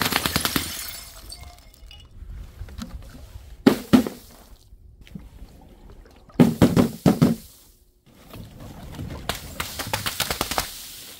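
Glass bottles shattering one after another. Shards tinkle at the start, sharp crashes come about four seconds in and again around seven seconds, and a longer spray of clinking glass fragments follows near the end.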